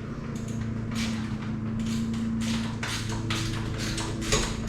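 Metal hand tools and engine parts clicking, tapping and clinking as they are handled during an engine teardown, over a steady low hum.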